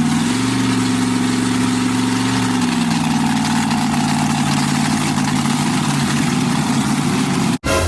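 Drag-race car's engine running loud and steady, its pitch rising a little at the start and easing down about three seconds in. The sound cuts off abruptly near the end.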